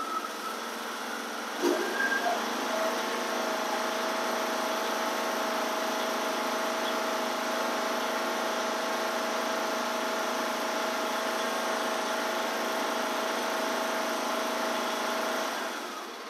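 Briggs & Stratton 21 hp engine on a Craftsman riding mower picking up speed about two seconds in, then running steadily at high throttle, around 3,200 rpm. Its governor spring has just been tightened to raise the top speed.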